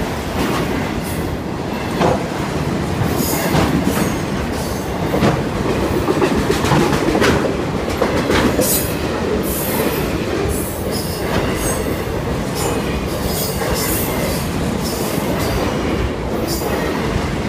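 Freight train of autorack cars passing close by at speed: a steady rumble from the rolling wheels, broken by irregular clicks and clanks as the wheels cross the rail.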